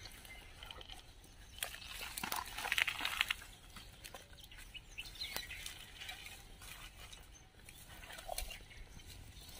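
Dry brush and twigs rustling and crackling underfoot and against clothing as people push through dense dry scrub, in irregular bursts, busiest about two to three seconds in.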